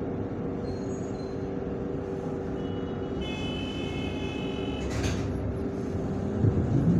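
Inside a ZiU-682V trolleybus: a steady electric hum with high steady tones in the middle and a short sharp hiss about five seconds in. Near the end the trolleybus's electric traction motor starts with a rising whine as it pulls away from the stop.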